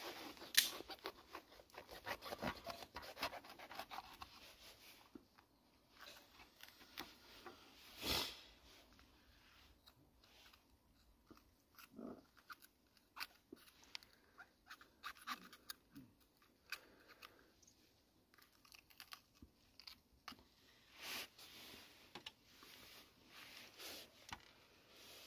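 Small knife slicing and coring a green bell pepper on a wooden chopping board: quiet, irregular crunches of the blade through the pepper flesh and light taps of the knife on the board, with a louder knock about eight seconds in.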